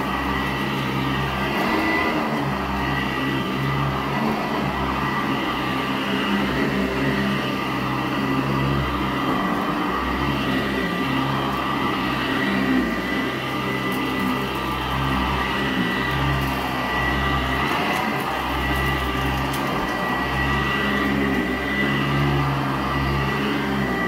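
Sanitaire SC886 commercial upright vacuum running steadily with a high motor whine while its brush roll works over dirty carpet. A low rumble swells and fades every second or two as the machine is pushed back and forth, with a few faint ticks of grit being picked up.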